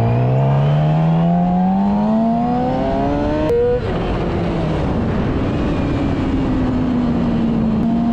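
Sport motorcycle engine pulling hard, its note climbing steadily for about three and a half seconds. It breaks briefly at an upshift, then runs steadily at higher speed under wind and road noise.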